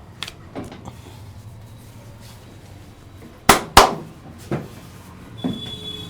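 Sharp slaps of hands on the body during a massage: two loud ones in quick succession around the middle, with lighter slaps before and after.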